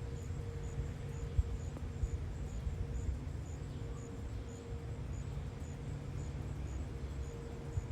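A distant outdoor warning siren holds one steady tone that swells and fades every second or two, over a low outdoor rumble. A high insect chirp repeats about twice a second.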